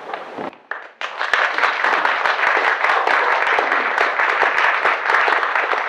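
Audience applauding: many hands clapping together, starting about a second in and carrying on steadily.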